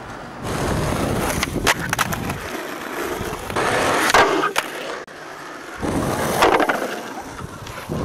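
Skateboard wheels rolling on parking-lot asphalt and the board scraping along a parking curb in two louder spells, with a few sharp clacks of the board.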